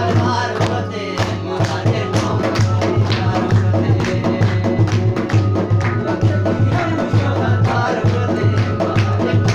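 Live Chitrali folk music: a keyboard and a hand drum played in the lap, with many people clapping along in a quick, steady rhythm and a man singing near the start.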